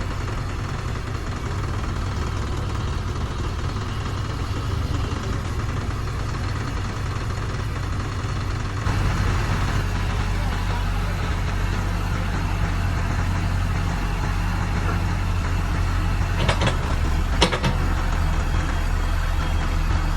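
XCMG WZ30-25 backhoe loader's Yuchai diesel engine running steadily, growing louder about halfway through. Two sharp knocks about a second apart near the end.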